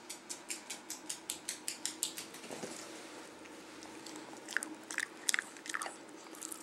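Dog chewing a treat: a quick run of crisp crunches, about five a second, then a few louder crunches near the end.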